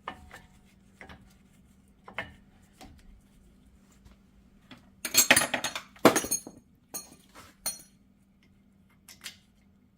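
Metal brake parts being handled and fitted together: scattered metallic clicks and clinks, with a burst of rattling clatter about five to six and a half seconds in, then a few single clinks.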